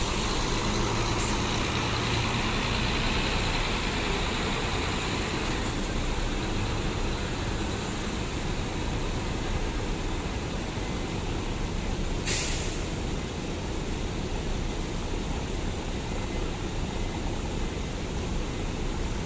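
Bus engine running with a steady drone of vehicle noise, and one short sharp hiss about twelve seconds in.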